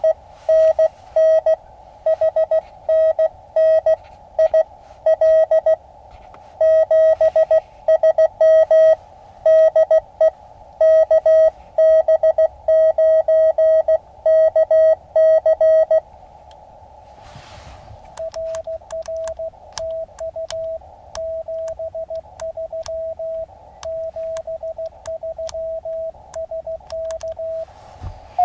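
Morse code (CW) tones from an Elecraft KX2 transceiver's speaker, a single pitched beep keyed in dits and dahs over a band of receiver hiss. A loud sequence runs for about the first 16 seconds; after a short pause a fainter sequence at slightly higher pitch follows.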